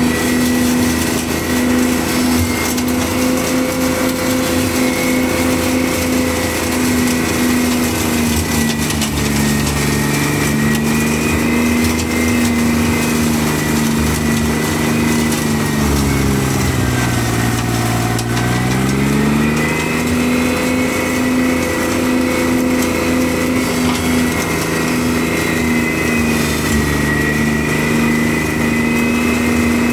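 Steiner 430 tractor engine running with its front Ventrac flail mower cutting tall weeds, a steady mechanical drone with a high whine above it. Just after halfway the pitch sags for a couple of seconds, then climbs back.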